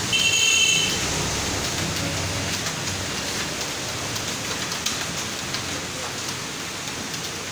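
Fast, continuous typing on a computer keyboard: a dense stream of key clicks. A brief high-pitched tone sounds right at the start.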